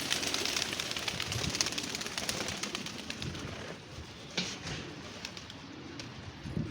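Domestic pigeons cooing, low and repeated, over a hissy, crackly background that eases off about halfway through.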